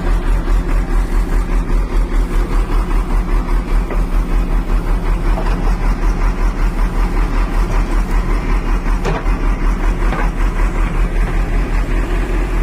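Excavator engine running steadily, a loud low rumble with a fast, even pulse.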